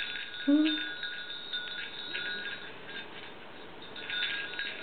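Small brass hand bell shaken by a baby, ringing in repeated jingling bursts that ease off and pick up again near the end. A short voice sound about half a second in.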